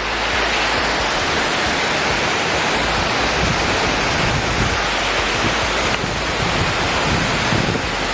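Waterfall rushing: a loud, steady wash of falling water, loud enough to drown out a shouted voice.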